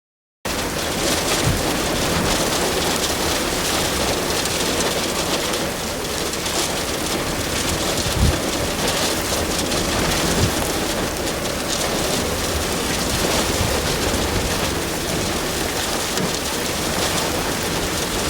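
Wind-driven hail, around three-quarters of an inch, and heavy rain pelting down in strong derecho winds: a dense, steady hiss and clatter, with a few louder thumps about eight and ten seconds in.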